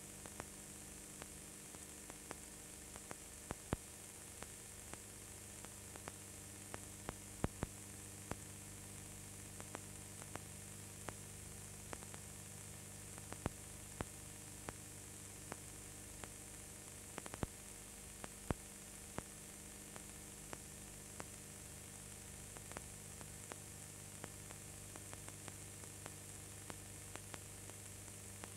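Steady electrical hum and hiss with scattered, irregular clicks and crackles: the noise floor of an old film transfer, carrying no live sound from the scene.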